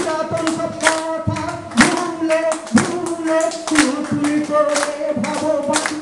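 A man singing a Bengali song into a microphone in long, held notes, with the audience clapping along about twice a second.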